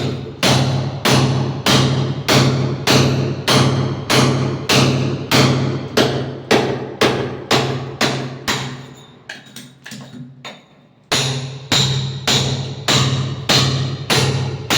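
Background music with a steady percussive beat, about two strikes a second over a low note. It fades out near the middle and restarts abruptly a moment later.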